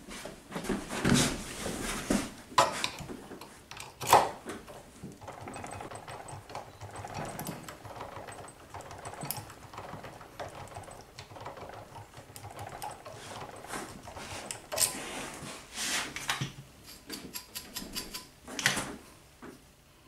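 A hand file rasping in short strokes across the edge of a brass key blank clamped in a bench vise, filing the marked cuts deeper to impression a key. A few sharper knocks and handling clatter come through, the loudest about four seconds in and again near the end.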